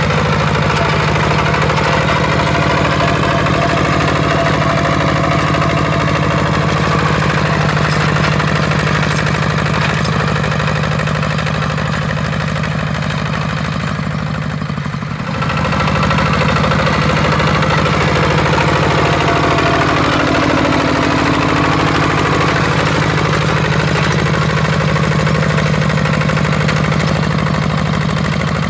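Kubota walk-behind two-wheel tractor's single-cylinder diesel engine running steadily under load while it pulls a plough through soil. Its level dips briefly about halfway through, then it carries on.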